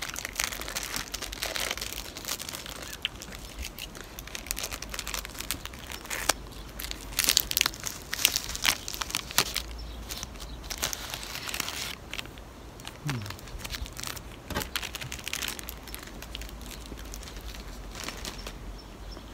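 Clear plastic ice lolly wrapper crinkling and tearing as it is peeled off, a run of sharp crackles that is loudest about halfway through.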